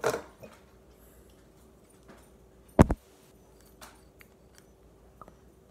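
A few knocks and clicks of things being handled on a table, the loudest a single sharp knock just under three seconds in.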